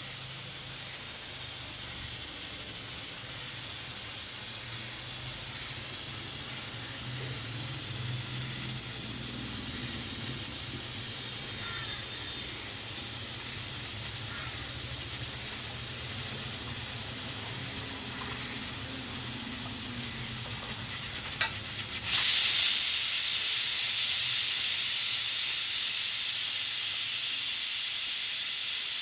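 Pressure cooker venting steam with a steady hiss. About three-quarters of the way in, just after a faint click, the hiss suddenly grows louder and brighter and keeps going.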